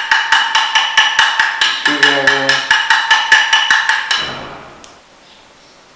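A screwdriver tapping rapidly on a KYB SSS motorcycle fork, about six sharp metallic taps a second that ring on after each strike. The tapping shakes air bubbles out of the freshly filled fork oil. It stops about four seconds in, leaving a short ring.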